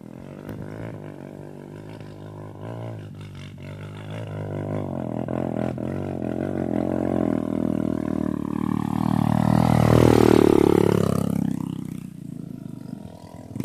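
Dirt bike engine approaching down a slope and growing louder, its revs rising and falling, passing close by about ten seconds in with a sudden drop in pitch, then fading as it moves away.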